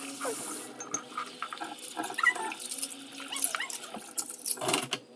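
A pet making short, squeaky cries that rise and fall, with a noisy splash or clatter near the end.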